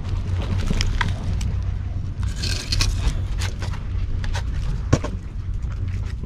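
Close rustling, scraping and sharp clicks of plastic and paper trash being brushed against the camera, over a steady low rumble; one sharper knock about five seconds in.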